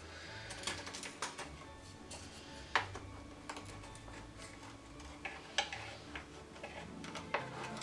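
Faint, irregular clicks and light scrapes of a wooden stick working around gingerbread cakes in a metal baking mould, prying them loose.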